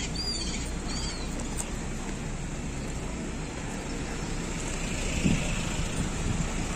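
Steady outdoor background noise with a low rumble, typical of road traffic, and two short high chirps in the first second.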